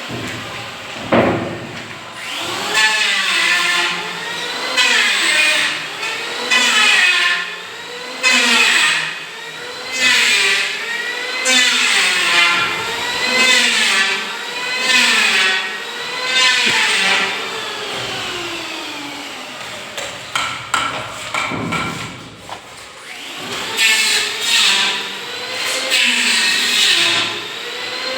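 A power tool's motor repeatedly speeding up and slowing down, a rising and falling whine about every second and a half.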